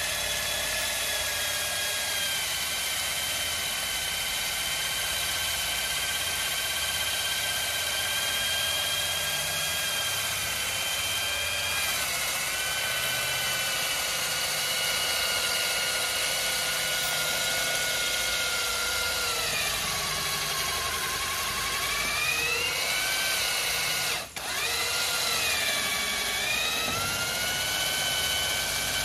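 Electric diamond core drill on a bracket stand running while cutting a core hole into a wall: a steady motor whine that drops in pitch and rises again twice in the last third as the motor slows under load. There is one brief dropout about five seconds before the end.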